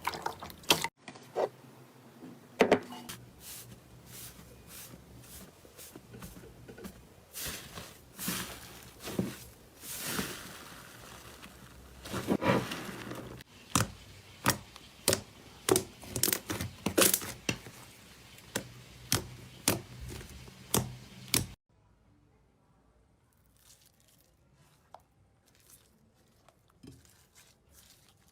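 Slime being handled by hand: a string of sticky pops and sharp clicks, some in quick runs, stopping abruptly about 21 seconds in, with only a few faint ticks after.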